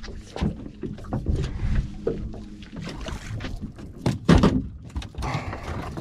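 Sounds of a small fishing boat on the water: a steady low rumble of wind and water against the hull, broken by scattered knocks and one heavy thump about four seconds in.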